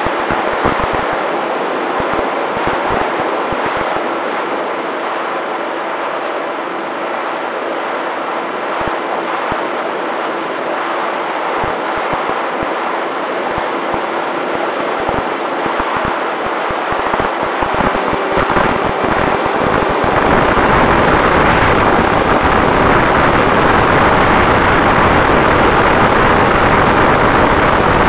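Airflow rushing over a Volantex Ranger 1600 RC plane's onboard camera in flight, with the steady whine of its electric motor and propeller underneath. About two-thirds of the way in, the wind noise gets louder and deeper.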